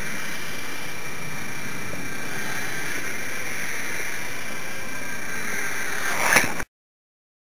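Twin tiny electric motors and propellers of a micro foam RC plane whining steadily with several high, even tones. A short, sharp clatter comes about six seconds in, then the sound cuts off abruptly.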